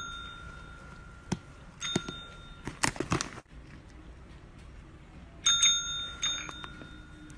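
Desk service bell pressed by a cat's paw, ringing twice, about two seconds in and again about five and a half seconds in, each ring fading away slowly. A quick cluster of clicks falls between the two rings.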